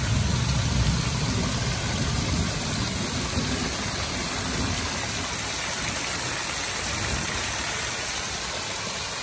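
Rainwater runoff from a large roof pouring as a small waterfall into a muddy channel: a steady, even sound of falling and running water.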